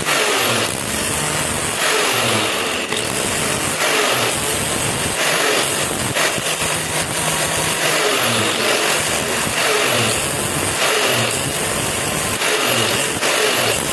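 A power tool, likely a grinder or sander, running continuously against metal. Its sound dips and recovers in a repeating pattern, roughly once a second, as the work is pressed and passed across it.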